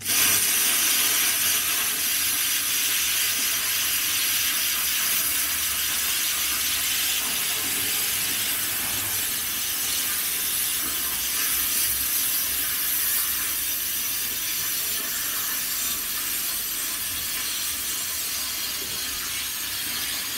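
Cut 40 inverter plasma cutter's arc cutting through metal plate: a loud, steady hiss that starts abruptly as the torch fires and holds evenly while the cut runs.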